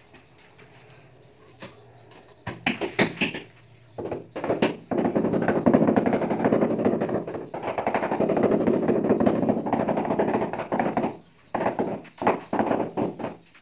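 A steel trowel scraping and spreading gritty cement mortar on a tiled floor: a continuous rasping scrape for about six seconds. Scattered clicks and taps of the trowel come before and after it.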